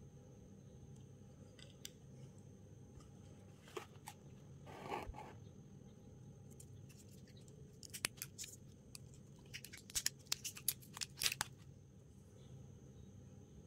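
Hands handling a smartwatch and its packaging: a short rustle about five seconds in, then quick clusters of sharp clicks and taps near the middle and again a little later.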